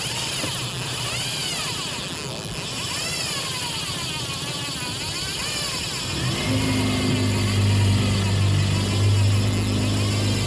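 Boat's outboard motor running on the water under a steady hiss, with a wavering whine that rises and falls in pitch. About six seconds in, a steady low engine hum comes up strongly.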